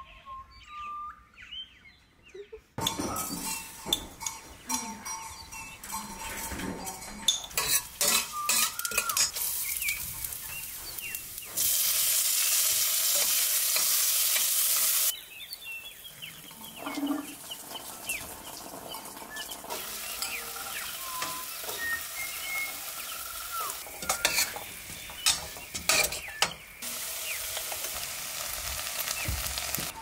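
Home cooking sounds: utensils clicking and clinking against a wooden chopping board, bowls and pans, with food sizzling as it fries in a pan. The sizzle swells to a loud, steady hiss for about three seconds a little before the middle.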